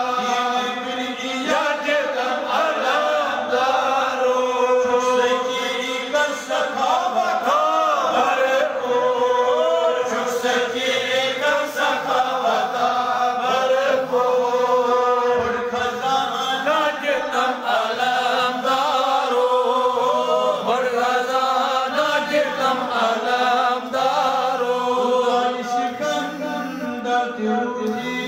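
Devotional chanting: a voice singing a continuous melodic recitation with sliding, ornamented pitch.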